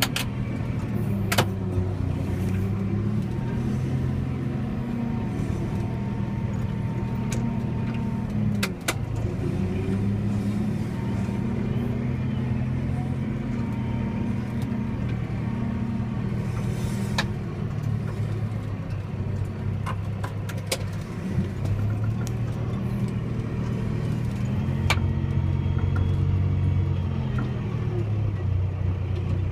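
John Deere 6125R tractor engine running steadily under load while pulling a four-furrow plough. The engine note dips briefly about nine seconds in and shifts again in the last third as the load changes, with a few sharp clicks.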